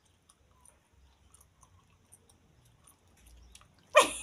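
Near silence in a small room, broken by faint scattered small clicks like mouth noises. About four seconds in, a person's voice breaks in loudly.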